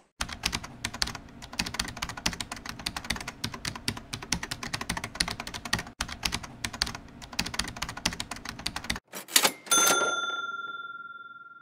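End-card sound effect: rapid keyboard-typing clicks for about nine seconds, then a couple of sharp hits and a bell-like ding that rings out and fades.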